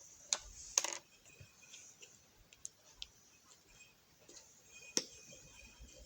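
A few scattered light clicks and taps from small objects being handled, with quiet stretches between them.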